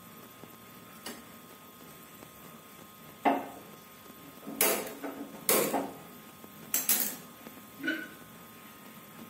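A gas stove burner being lit with a hand-held lighter: a handful of sharp clicks and knocks spread over several seconds before the flame catches.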